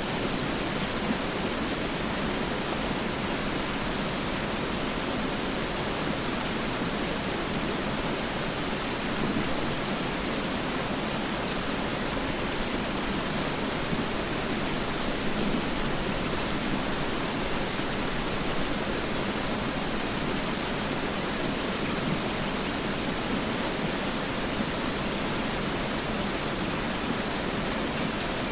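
Mountain river rushing steadily, an even, unbroken noise of flowing water.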